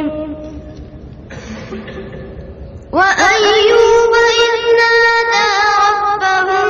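A boy reciting the Quran in a slow, melodic chant: a long held note ends at the start, a pause of about three seconds follows, and then a new phrase begins with ornamented, wavering pitch.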